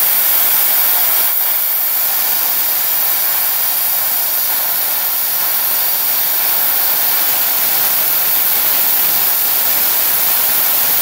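Tenya Cut50 air plasma cutter cutting through a 10 mm steel flat bar: a steady, unbroken hiss of the plasma arc and its air stream.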